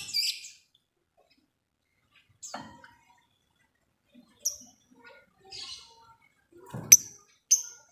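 Lovebirds calling: scattered short, shrill chirps and a couple of buzzier calls separated by silent gaps, with louder sharp chirps in quick succession near the end.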